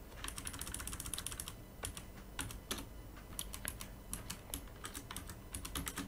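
Computer keyboard typing: a quick run of keystrokes, then scattered single key presses.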